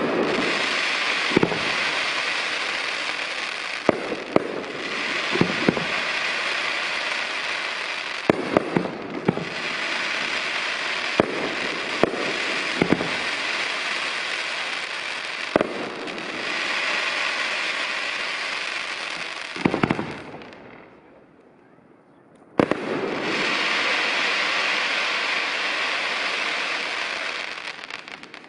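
Fireworks display: aerial shells bursting every second or two over a dense, continuous crackle of glittering stars. Near the end there is a pause of about two seconds, and then a sharp bang sets it going again.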